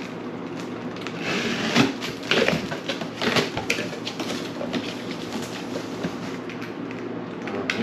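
A cardboard box being opened and handled: rustling and scraping of cardboard packaging with scattered short clicks and knocks.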